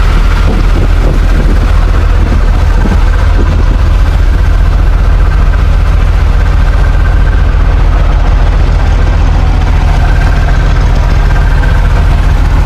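Fishing boat's engine running steadily with a low, even hum.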